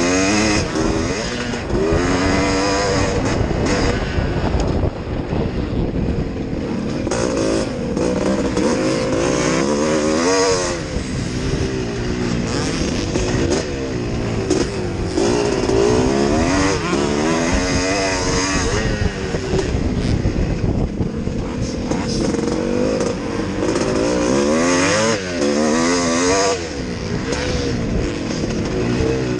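Yamaha YZ465G two-stroke single-cylinder motocross engine under race load, revving up hard and dropping off again and again as the rider accelerates along the straights, shifts and backs off for corners.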